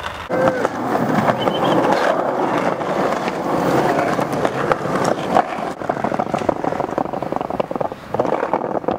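Skateboard wheels rolling on concrete, a continuous rough rumble broken by many short clacks and knocks of the board.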